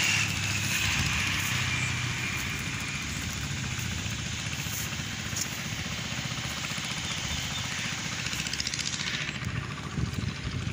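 A vehicle engine, likely a passing motorcycle, runs steadily with a low hum. Its whine falls slowly in pitch over the first few seconds, over a steady haze of outdoor noise.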